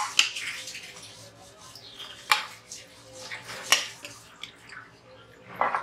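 A spoon scraping and tapping against a strainer held over a pan, pressing soaked tamarind pulp through. Several sharp taps ring out among the wet scraping.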